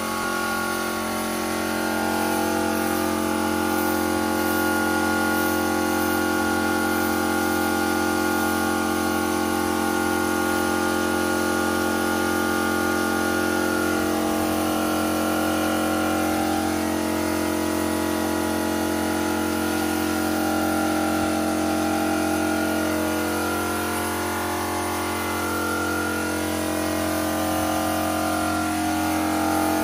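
Air compressor motor running steadily, with the hiss of a cup-type paint spray gun spraying black paint.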